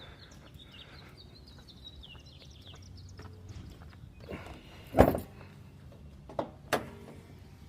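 A single sharp knock about five seconds in, then two lighter clicks, over a faint steady hum.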